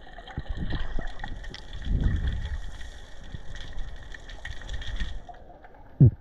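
Water sloshing and gurgling around the camera, with scattered muffled knocks and one sharp low thump near the end, the loudest sound.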